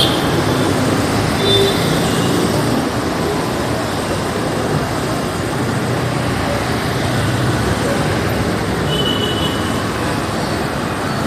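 Urban road traffic: a steady, dense rumble of vehicles moving past, with a couple of faint, brief high-pitched tones.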